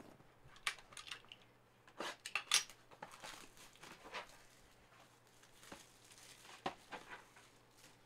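Opening and handling a trading-card mega box and its packs: rustling packaging, cardboard scraping and light taps and clicks in short irregular bursts, loudest about two seconds in.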